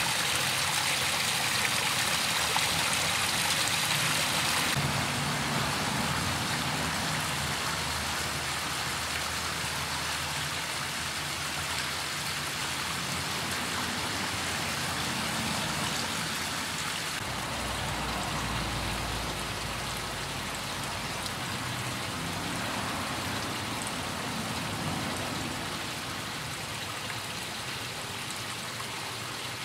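Water from a koi pond's rock waterfalls splashing and trickling steadily into the pond. The spray is brighter and louder in the first five seconds, then settles to a softer, even rush.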